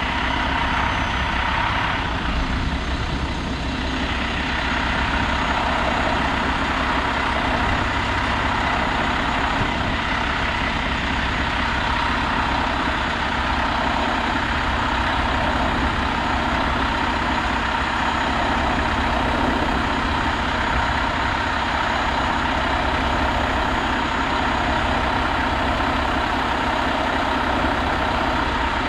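Mack Granite roll-off truck's diesel engine running steadily at idle, with a steady high whine over it while the tarp arm is working.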